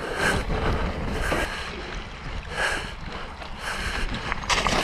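Mountain bike tyres sloshing through a muddy, fast-flowing creek crossing, with wind noise on the microphone. Noisy surges come about once a second.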